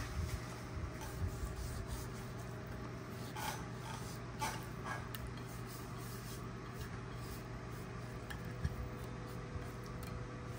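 Faint rubbing and a few light scrapes as seasoning is worked by hand into raw lionfish, over a steady low hum.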